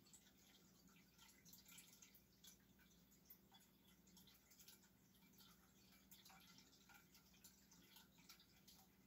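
Faint trickling and irregular dripping of a cat water fountain, over a faint steady low hum.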